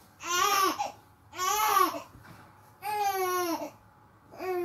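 A baby fussing: four short cries about a second and a half apart, each rising then falling in pitch.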